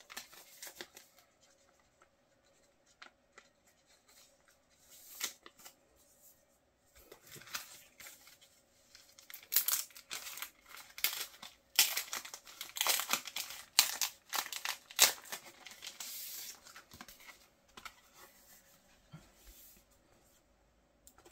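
Paper and thin wrapping rustling and crinkling as hands unwrap and handle packaged paper items: scattered rustles at first, a dense run of crinkling in the middle, then quieter handling.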